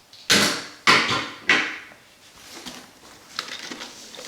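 Hand tools being handled: three sharp clacks about half a second apart, then quieter rustling and light clicks.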